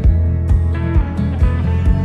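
Background music with acoustic guitar over a steady beat.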